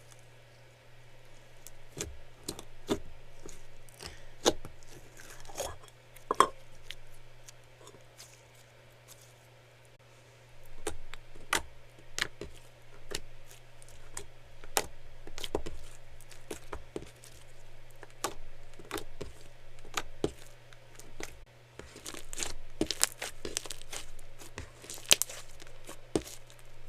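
Clear slime being squished, poked and stretched by hand, giving irregular sticky clicks, pops and crackles. There is a quieter lull about a third of the way in and a denser run of crackling near the end, over a steady low hum.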